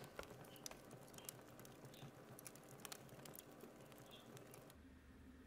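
Faint, scattered light clicks and taps as a wooden dining chair is handled and set straight in a quiet room. Near the end the clicks stop and a steady low hum takes over.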